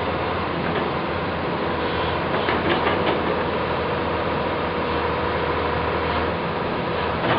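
Heavy-equipment diesel engine running steadily with a steady whine, and a few metallic clanks about two and a half to three seconds in.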